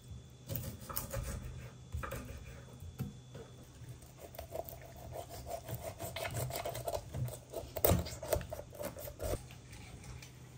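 Kitchen knife cutting up a raw whole chicken on a wooden cutting board: irregular sawing and scraping strokes. The strokes come thicker in the second half, with one sharper knock about eight seconds in.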